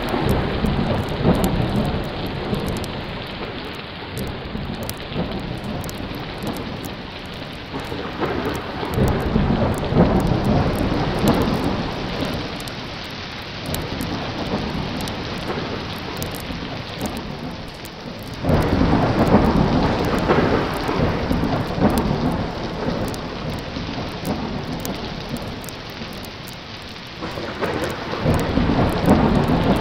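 Steady heavy rain with rolling thunder that swells up three times. The loudest rumble breaks in suddenly about two-thirds of the way through.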